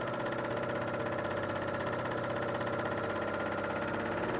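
Serger sewing a wide two-needle cover stitch, running steadily at an even speed as the needles stitch through fabric backed with fusible fleece.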